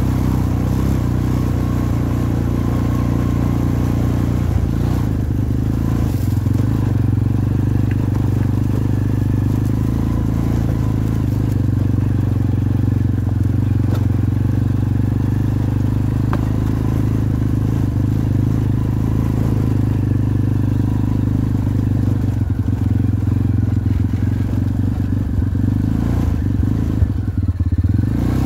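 Jinling 250cc ATV engine running steadily while the quad is ridden along, its note holding even with little revving.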